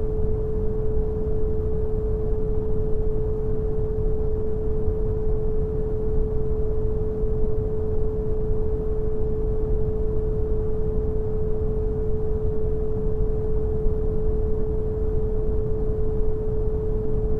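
Synthetic brown noise, a deep, even hiss, with a steady pure tone at 432 Hz held unchanged over it.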